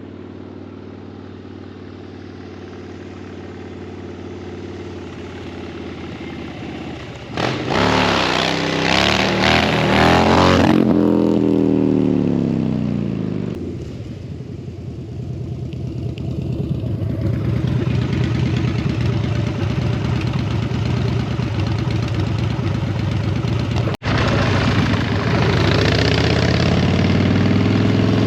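Harley-Davidson motorcycle's V-twin engine revved hard during a burnout. It jumps suddenly to high revs about seven seconds in, then its pitch falls away over a couple of seconds. After that it runs steadily and picks up again near the end, with a momentary cut-out in the sound shortly before.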